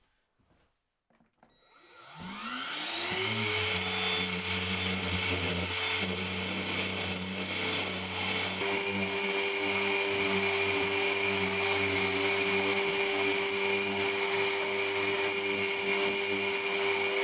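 Random orbital sander starting up about two seconds in, its whine rising to a steady pitch, then running steadily as it sands a wooden block.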